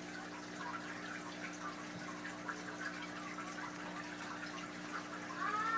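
Aquarium filtration running: water trickling and dripping steadily over a constant low pump hum.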